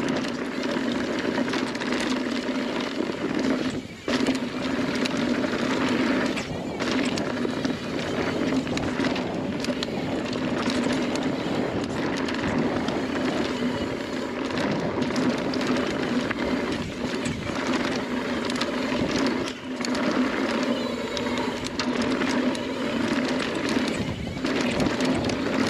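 Mountain bike riding fast down a dry dirt trail: tyres rolling over dirt and roots and the bike rattling over bumps, with a steady buzz underneath that breaks off briefly twice.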